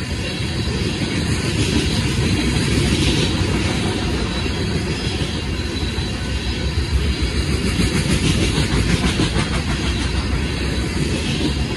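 Open-top hopper cars of a rock train rolling past at a steady pace: a continuous rumble of steel wheels on rail with a rapid clickety-clack of the wheels over rail joints, strongest in the second half.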